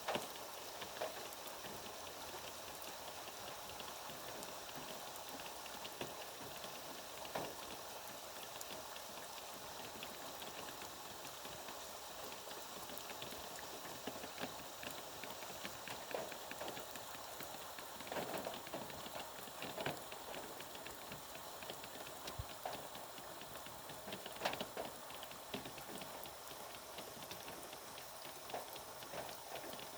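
Steady rainfall: an even hiss of rain with many drops pattering on surfaces, and now and then a louder single drip or splash.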